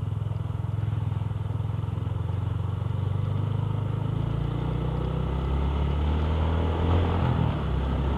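RS 125 Fi motorcycle's engine running as the bike is ridden, freshly tuned. The engine's pitch shifts somewhat later on as the throttle changes.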